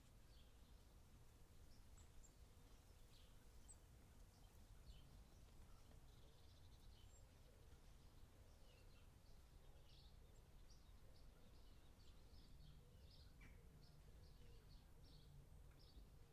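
Faint birds chirping: many short, quick calls scattered throughout, over a low steady background rumble.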